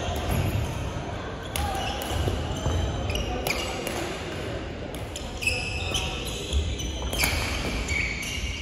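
Badminton rally on a wooden court in a large hall: rackets hit the shuttlecock with sharp cracks about every two seconds, and shoes squeak on the floor. Chatter from around the hall runs underneath.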